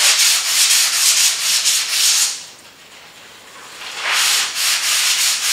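Sandpaper rubbed back and forth by hand on the filler-patched rear panel of a 1966 Chevy pickup's cab, in quick strokes several a second. The sanding stops for about a second and a half midway, then starts again.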